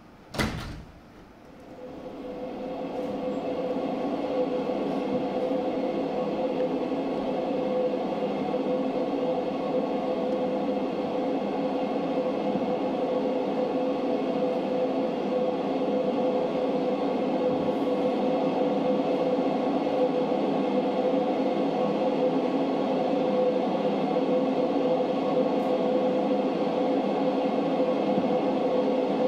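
A sharp click just after the start, then a steady ambient drone of several held tones fades in over a few seconds and holds unchanged.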